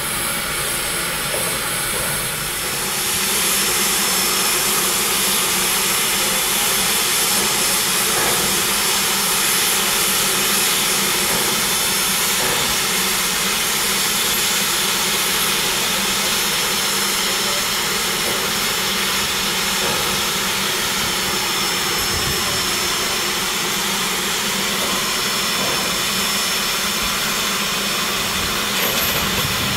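Steady hiss of steam from a live steam locomotive, the 1917 Baldwin 2-8-2 Mikado, as it moves slowly past. The hiss grows louder about two and a half seconds in and then holds steady.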